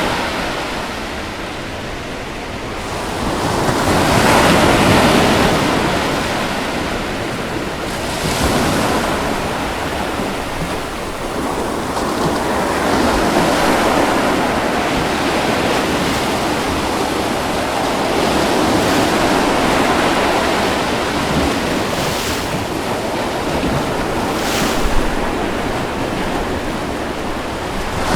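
Ocean waves breaking and washing on a beach, a continuous surf wash that swells and ebbs every few seconds, with a brief sharper splash near the end.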